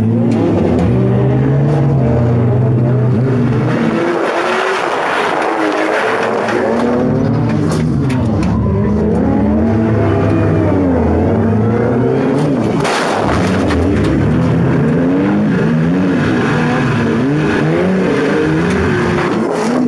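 Inside the cabin of a 1997 Subaru Impreza demolition-derby car: its flat-four engine revving up and down as it drives. A couple of sharp knocks, near the middle and about two-thirds of the way through.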